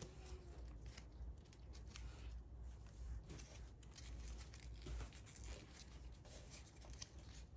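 Origami paper being folded and pressed by hand: faint, irregular rustling and crinkling.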